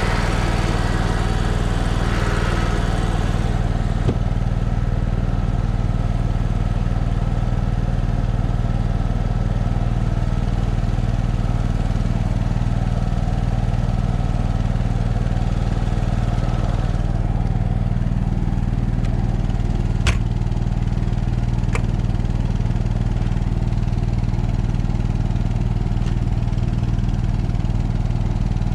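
Onan 5500 W RV generator's two-cylinder engine running steadily at constant speed under air-conditioner load, on its new carburetor, smoothly. Its sound becomes duller a few seconds in, and again past halfway, as the sound housing cover and then the compartment door are closed. There are a couple of sharp clicks around twenty seconds in.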